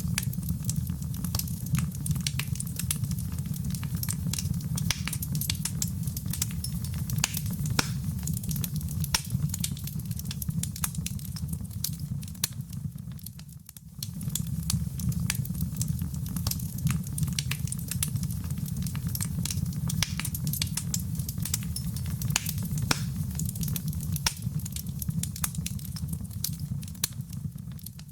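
Wood fire in a fireplace crackling, with dense sharp pops and snaps over a steady low rumble of the flames. The sound dips briefly about halfway through, then resumes.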